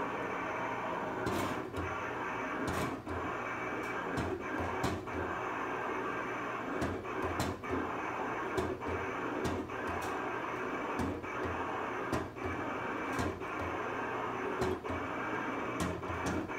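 Cutting plotter cutting a stencil sheet: a steady whir from its moving head, with sharp clicks at irregular intervals, about one a second.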